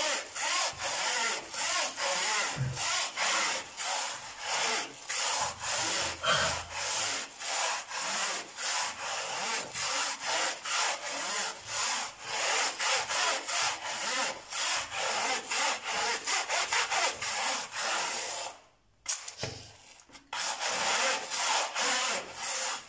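Stiff bristle brush scrubbing a range hood's metal mesh grease filter lathered with cleaner, in quick back-and-forth strokes of about three a second, with a short pause about three-quarters of the way through.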